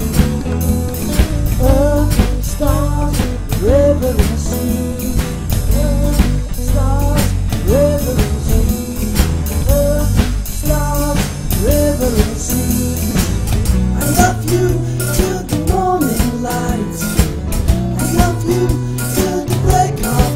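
Rock band music with guitar, bass and a steady drum-kit beat, under a melody line whose notes slide up and down.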